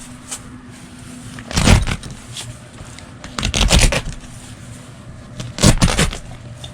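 Velcro on a removable fabric window panel being pulled apart and pressed back, three rasping rips about two seconds apart.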